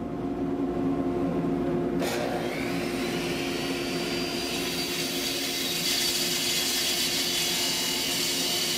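DeWalt miter saw running at full speed and cutting through a maple block, a steady motor whine with a click about two seconds in and a hiss that builds as the blade goes through the wood.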